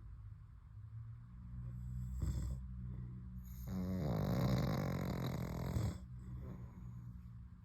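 A pug and a man snoring together: a steady low rumble of snoring throughout, with one long, louder snore from about four to six seconds in.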